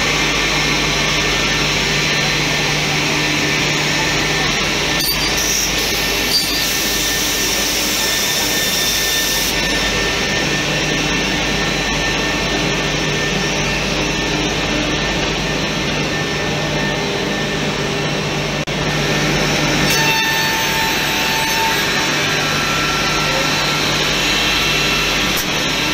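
CNC door-edge processing machine running: a steady mix of motor hum, cutter and trimming-head noise and air hiss. A single short knock about six seconds in.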